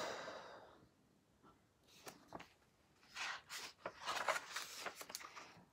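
Picture-book pages rustling as a page is turned: a soft, papery rustle starting about three seconds in and lasting a couple of seconds, after a quiet pause with a couple of faint clicks.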